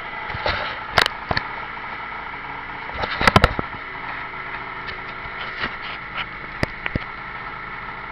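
Scooter engine idling steadily, with several sharp clicks and knocks over it, the loudest a quick cluster about three seconds in.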